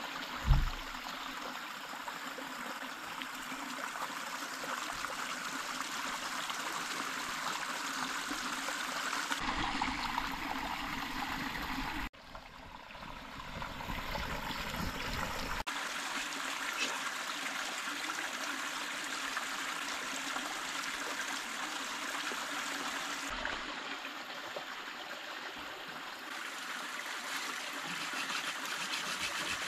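Shallow stream babbling steadily over stones. A single thump just after the start is the loudest moment, and the water sound drops out briefly about twelve seconds in before returning.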